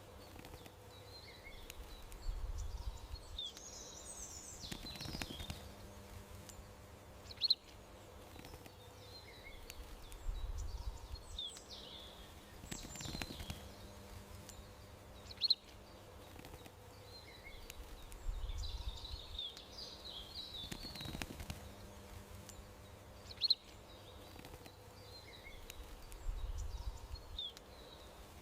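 Small songbirds chirping and twittering over faint steady background noise, the same sharp chirp coming back about every eight seconds.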